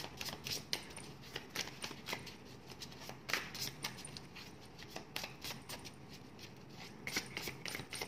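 Tarot cards being handled as a card is drawn from the deck: a string of light, irregular clicks and rustles of card stock.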